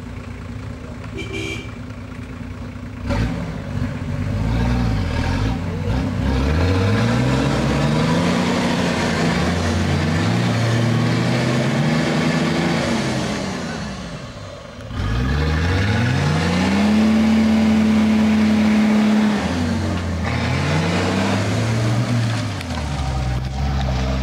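Nissan 4x4's engine revving hard under load in deep mud. The revs climb in repeated long sweeps and hold high, drop away briefly a little past halfway, then climb again.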